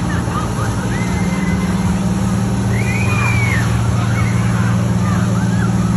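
Pumper fire engine's engine and fire pump running at a steady drone while a charged hose sprays water, with scattered high-pitched shouts over it.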